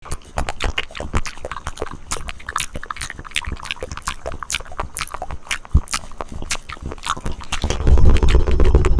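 Close-miked wet mouth sounds: a stream of irregular tongue and lip clicks and smacks. Near the end they give way to a louder, rapid fluttering rumble of tongue fluttering.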